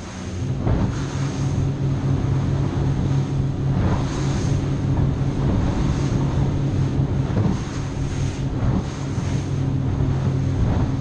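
Cobia 237 center-console boat under way: its outboard engine drones steadily under rushing water, with the hull slapping through small waves every second or two and wind buffeting the microphone.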